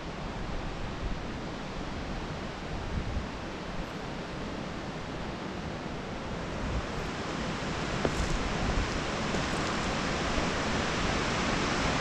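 Steady rush of falling water, growing a little louder over the second half, with low wind rumbles on the microphone.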